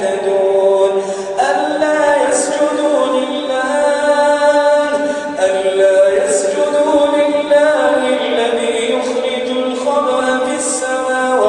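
A male reciter chanting the Quran in a melodic tajweed style, unaccompanied. He holds long drawn-out notes that slide between pitches, in phrases a few seconds long with short breaks between them.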